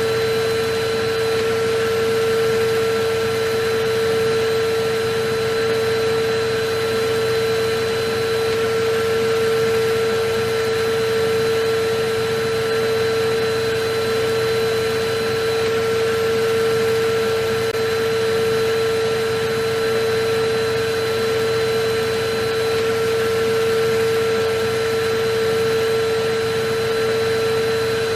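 Electric vacuum cleaner running steadily: an even rushing noise with a constant motor whine, unchanging in level.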